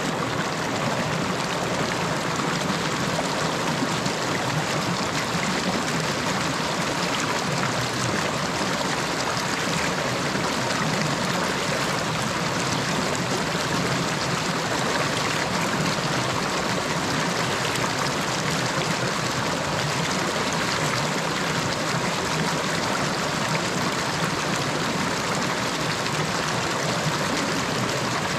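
A river flowing, an even, unbroken rush of running water.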